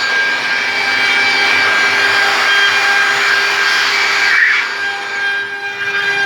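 CNC machine's spindle running with a steady whine while the cutter carves a ring, with a rough cutting noise that swells and eases, dropping a little about five seconds in.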